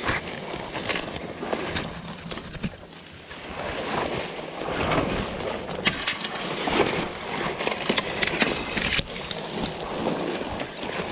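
Dry brush and brambles swishing and crackling against the legs of someone pushing through thick cover at a walk, with a few sharp cracks of snapping twigs.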